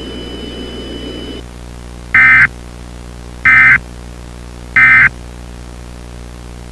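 Emergency Alert System end-of-message signal: three short, loud bursts of SAME digital data, each about a third of a second and roughly 1.3 s apart, marking the end of the alert. Before them, a steady hiss with a faint high whine cuts off about a second and a half in.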